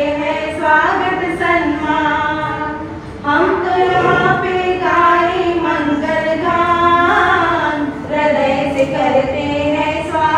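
Two women singing a song together, unaccompanied, into handheld microphones, with long held notes that glide in pitch.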